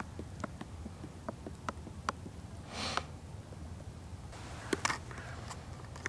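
AeroPress coffee maker being stirred and handled: scattered light plastic clicks and taps, with two short rustles, one about halfway and one near the end, over a low steady rumble.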